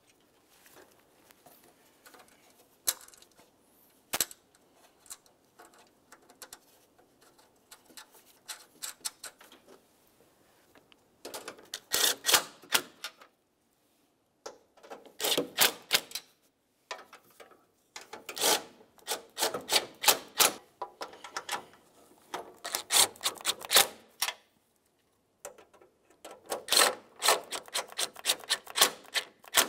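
Cordless impact driver with a socket on an extension running grille mounting nuts down onto their studs, in about five short bursts of rapid hammering, each a second or two long, starting about eleven seconds in. Before that there are only faint clicks and rattles of parts being handled.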